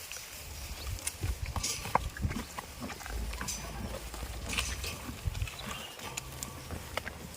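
Goats moving about at close range: scattered short clicks and rustling, with a low rumble underneath and no clear bleat.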